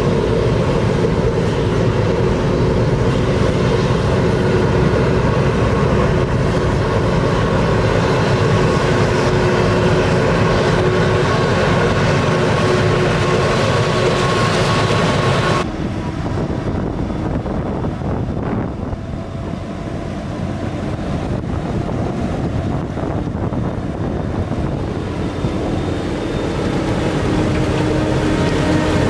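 Claas Jaguar 950 self-propelled forage harvester at work chopping maize and blowing it into a trailer: a loud, steady engine and chopper drone with a steady whine. About halfway through the sound cuts suddenly to a quieter, lower mix of the harvester and a tractor driving alongside with its silage trailer.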